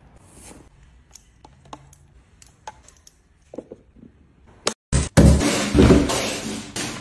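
Light scattered taps and clicks, typical of food containers and packaging being handled and set down. A short silent gap follows about five seconds in, then a much louder, dense sound takes over.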